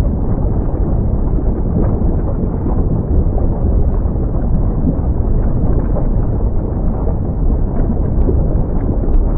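Mount Semeru erupting: a steady, loud low rumble with faint scattered crackles.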